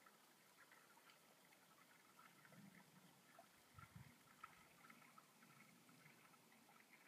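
Very faint trickle of flowing river water, a light scattered crackle of small ticks, with a brief low rumble from about two and a half to four seconds in.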